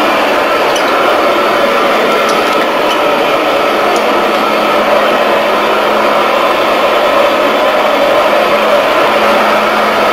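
Minuteman 260 26-inch walk-behind auto scrubber running steadily as it scrubs a hard tile floor with red scrub pads: a constant, even machine drone with a steady low hum underneath.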